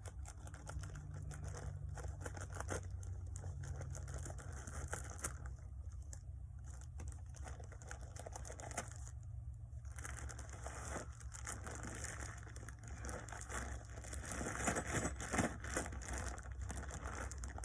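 Heavy plastic bag of QPR cold-patch asphalt being handled and torn open: dense, irregular crinkling and crackling, louder with sharper peaks in the last few seconds.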